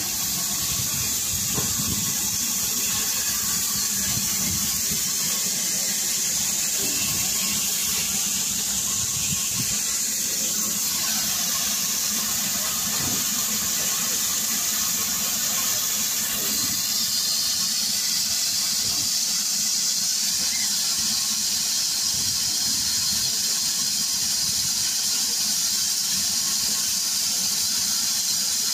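USATC S160 class 2-8-0 steam locomotive standing with steam hissing steadily, a high, even hiss that shifts slightly in tone about 16 seconds in.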